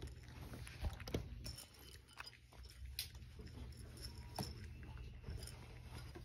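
A cat eating dry kibble treats, with irregular small crunches and clicks from the chewing, over a low steady hum.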